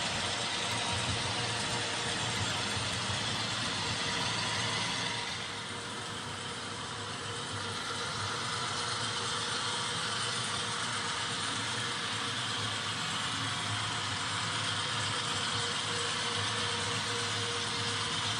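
HO scale model train running on the layout: a steady mechanical running sound that drops a little about five seconds in and builds back up.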